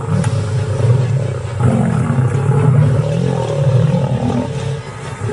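Lions growling deeply in several long, rough surges: threat growls in a standoff with a crocodile.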